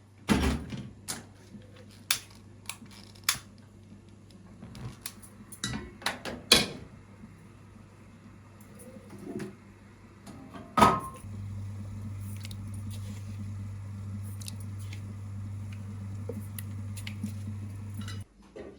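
Kitchen clatter: scattered clinks and knocks of dishes, pots and utensils being handled, the loudest a few sharp knocks. After about eleven seconds a steady low electrical hum starts, runs for about seven seconds and cuts off suddenly, like an appliance switching off.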